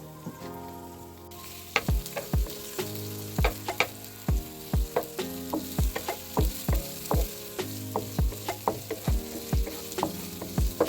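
Garlic, onion and tomato sautéing in hot oil. The sizzling starts about a second in, and a cooking utensil stirs and knocks against the pan about twice a second.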